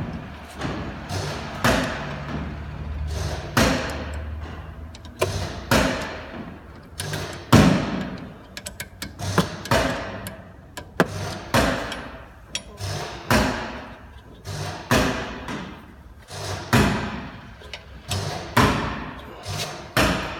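Metal being struck with a hammer at a steady pace of roughly one blow a second, each blow ringing briefly, as a car's rear wheel hub is knocked loose to come apart.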